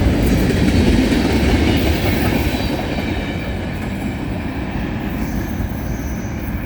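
Norfolk Southern freight train's cars rolling past, wheels rumbling and clattering on the rails, the sound easing off gradually toward the end.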